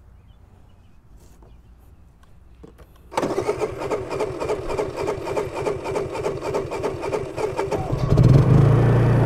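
Propane-converted Honda EU3000is inverter generator being electric-started: about three seconds in, its engine is cranked with a fast, even chugging for around five seconds, then catches near the end and runs up to a steady, louder note.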